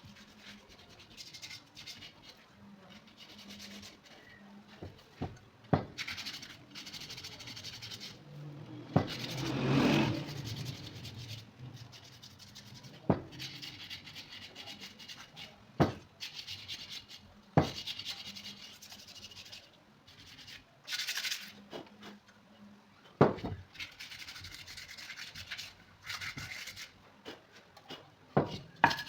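Hand rubbing on old ceiling fan parts: stretches of scratchy scraping strokes with short pauses between them, a few sharp knocks of a part being set down or handled, and a louder, fuller stretch of rubbing about ten seconds in.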